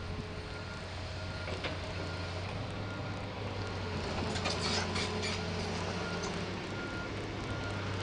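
Excavator's diesel engine running steadily with a low hum, while a backup alarm beeps on and off. About halfway through comes a burst of scraping and clattering as the bucket digs into the ground.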